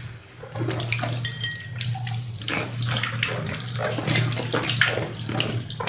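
Kitchen tap running into a stainless steel sink while green peppers are rubbed and rinsed under the stream, with irregular splashing.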